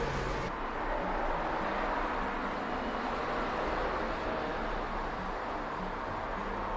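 Steady outdoor background noise: an even, constant rushing with no distinct events, its hiss a little duller after about half a second.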